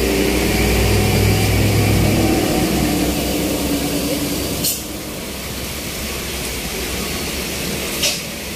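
Heavy truck engines pulling slowly uphill in a downpour, the nearest truck's deep engine rumble loudest for the first couple of seconds, over a steady hiss of heavy rain on the road. Two brief sharp hisses cut through, about halfway and near the end.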